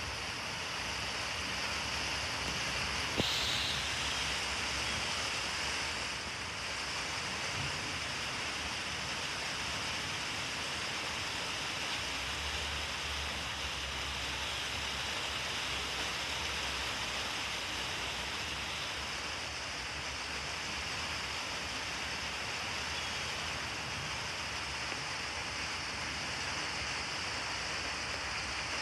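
Steady hiss of rain, with a low rumble of distant thunder swelling for a few seconds near the middle. A brief sharp sound stands out about three seconds in.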